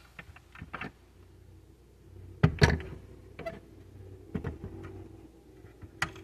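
Handling noises from a 1/24 scale die-cast Honda Civic Type R model: light clicks and a few short knocks as it is lifted, turned around and set back down, with a click near the end as its driver's door is opened.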